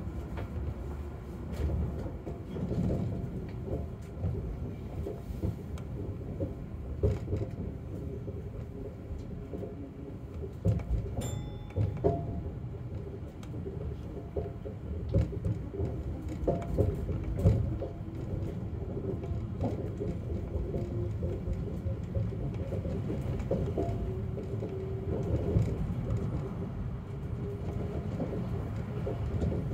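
Chiba Urban Monorail Type 0 suspended monorail car running between stations, heard inside the driver's cab: a steady low rumble with frequent small knocks and clunks and a faint steady hum. A brief high ping about eleven seconds in.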